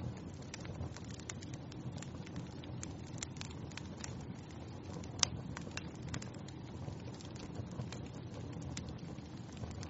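Wood fire burning in a fireplace: a steady low rush of flames with irregular crackles and snaps of burning wood, one sharper pop about five seconds in.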